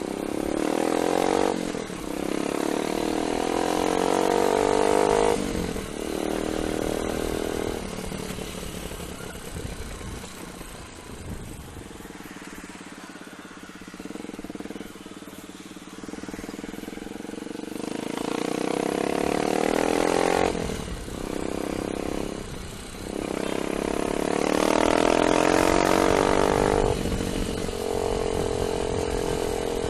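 Rusi KR125 motorcycle engine accelerating through the gears. The pitch climbs, drops at each shift, about 1.5, 5.5, 20.5 and 23 seconds in, and climbs again, with a quieter, steadier stretch in the middle.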